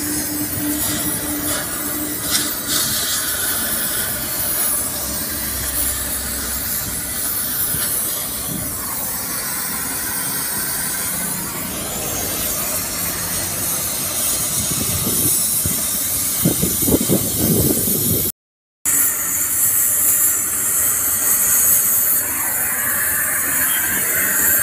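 Gas cutting torch hissing steadily as its flame burns through steel fittings on a truck chassis. The sound drops out for a moment about three quarters of the way through, then the hiss resumes brighter.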